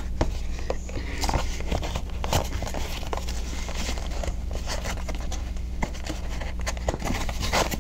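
White cardboard mailer box being handled and its end flap worked open: irregular scrapes, taps and crinkles of cardboard, over a steady low hum.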